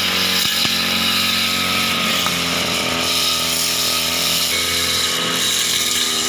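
Engine-powered brush cutter running at high speed while trimming a low hedge; its engine note drops about two seconds in, then holds steady.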